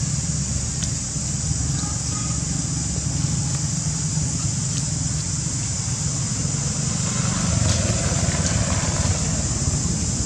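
Steady outdoor background noise: a low rumble like wind or distant traffic, under a constant high hiss.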